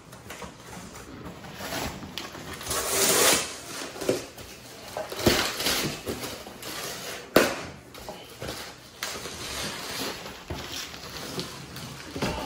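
A large cardboard shipping box being opened by hand: flaps pulled and folded, and bubble-wrapped contents dragged out, in irregular rustles, scrapes and crinkles, with one sharp knock a little past halfway.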